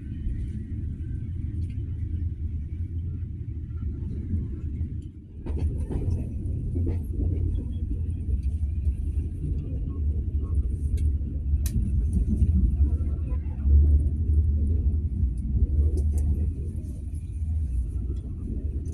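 Passenger train running, a steady low rumble that dips briefly about five seconds in and then comes back louder.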